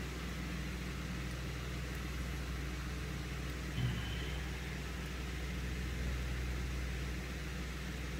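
Steady low machine hum with background hiss, and a brief low thump about four seconds in.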